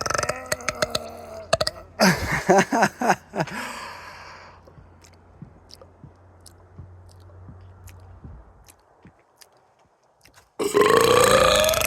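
A person burping in a series: a short pitched burp at the start, a longer, louder, rough one about two seconds in, then a quiet stretch with a few faint clicks, and a loud drawn-out burp starting near the end.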